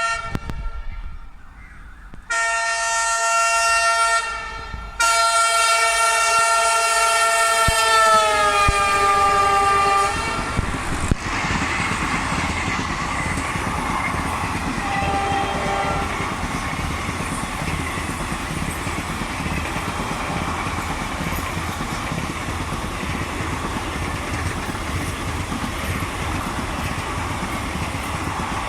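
WDP4D diesel locomotive's multi-tone air horn: a brief blast, a longer one, then a long blast whose pitch drops as the locomotive goes by. The steady rumble of the ICF passenger coaches rolling past follows.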